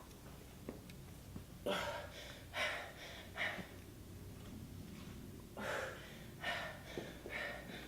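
A person breathing hard from exertion, with sharp exhales in two groups of three.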